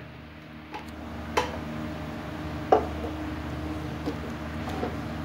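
A wooden spoon stirring cooked whole masoor dal in a metal pressure cooker pot, knocking against the pot a few times, most clearly about a second and a half in and near the middle. A steady low hum runs underneath.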